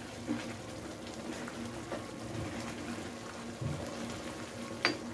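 Grated bottle gourd cooking in milk, simmering and bubbling in a non-stick pan as a spatula stirs it through, with one sharp tap near the end.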